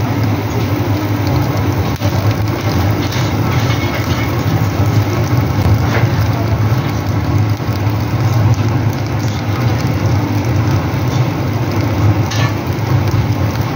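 Steady rushing roar of a fan-blown charcoal grill, air being forced through the burning coals, with a few faint crackles from the fire.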